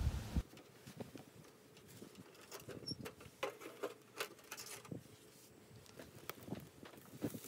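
Wind buffeting the microphone briefly at the start. Then faint, irregular clicks and light scratching at a steel wood-burning camping stove as its glass-fronted firebox door is opened and latched with a gloved hand.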